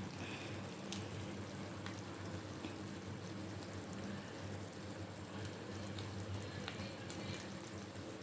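Instant noodles boiling in a pot of bubbling water, a steady hiss with a constant low hum underneath and a few scattered small clicks.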